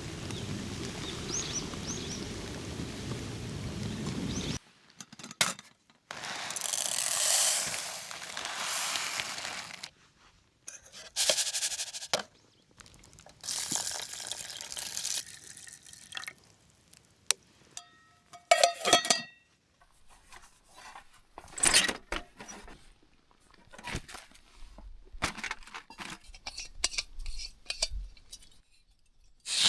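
Liquid poured in several short runs, with clinks and taps of cookware in between. It starts after a few seconds of outdoor background with faint bird chirps.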